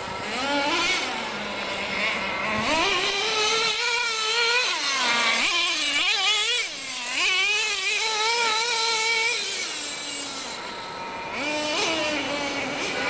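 Tamiya TNX 5.2 RC monster truck's small two-stroke nitro glow engine, a high buzzing note revving up and down over and over as the truck is driven. The engine drops toward idle a little after the middle and revs up again near the end.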